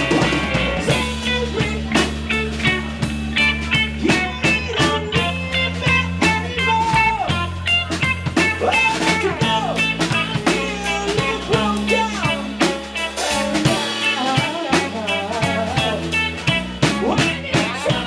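Live band playing: electric guitar, bass guitar and a drum kit keeping a steady beat, with a man singing over them.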